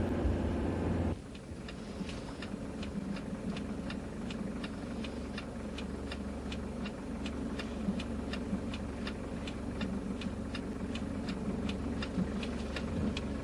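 Road noise inside a moving car, cut off about a second in. Then a car's turn-signal relay clicks steadily, about three clicks a second, over a low engine idle inside the cabin.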